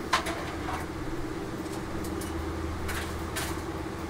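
Plastic model-kit sprues being picked up and handled, giving a few light clicks and rustles, the sharpest just after the start. A steady low room hum runs underneath.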